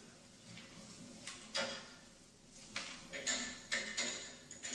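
Scattered knocks and clatters from a film soundtrack played over a hall's speakers, with a brief high ring about three seconds in.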